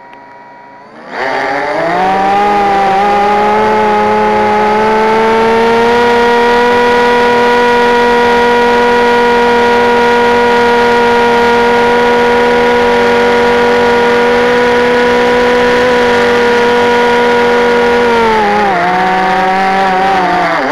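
Jumper Xiake 800 FPV quadcopter's brushless motors spinning up about a second in for takeoff, then a loud steady whine as it climbs, with the pitch dropping near the end as the throttle eases off.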